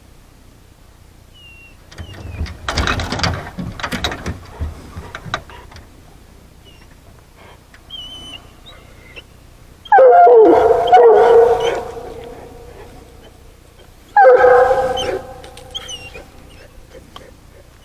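A coonhound howling twice, the first a loud call about two seconds long and the second shorter, each falling in pitch. Before them comes a stretch of rustling and clattering.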